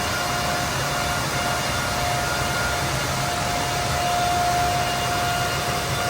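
Cisco ASR 9910 router's cooling fans running at full speed after power-on: a steady whine over a loud, even rush of air.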